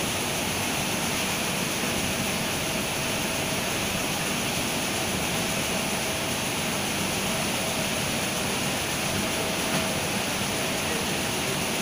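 Steady machinery noise from a running truck-loading conveyor and the flour mill plant, an even rushing hum with a faint steady tone.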